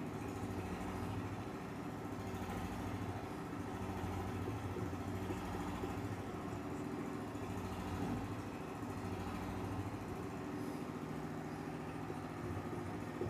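A steady mechanical hum with an even low drone.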